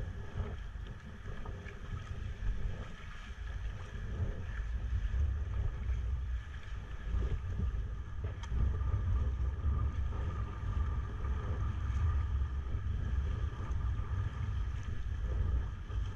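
Strong wind buffeting the microphone of a camera on a sea kayak, a steady low rumble, with faint sea-water sounds around the kayak.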